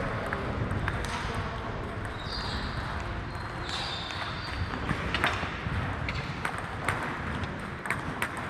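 Table tennis ball clicking off bats and table in an irregular string of sharp ticks, over the murmur of a large hall with faint voices. A couple of brief high squeaks come in near the middle.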